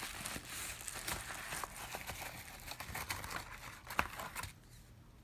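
Paper and plastic seed packaging being handled: continuous light rustling and crinkling with small clicks, and a sharper tap about four seconds in, before it goes quieter near the end.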